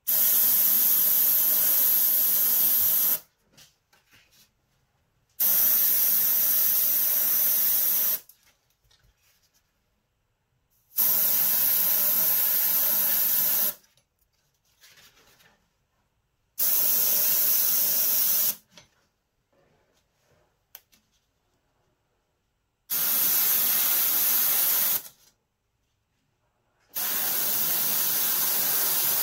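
Airbrush spraying paint through a hole stencil in six short bursts of hiss, each about two to three seconds long with quiet pauses between, one rivet shaded at a time.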